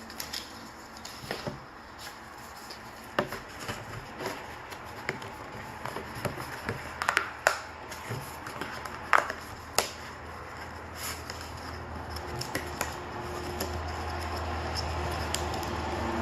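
Hands opening and handling merchandise packaging: scattered sharp clicks and taps with light rustling.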